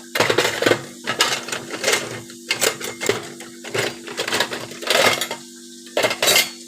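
A spatula scraping and knocking against a pan in quick, irregular strokes, spreading garlic butter.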